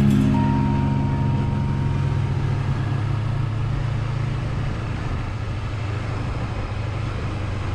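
Background music: one long held chord of sustained low notes that slowly fades, with no beat.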